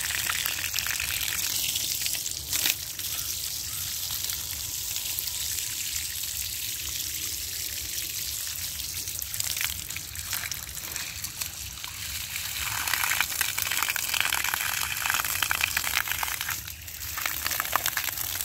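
Water from a hose gushing and splashing over brick-and-mortar masonry and running off its edge. The splashing grows louder about two-thirds of the way through and dips briefly near the end.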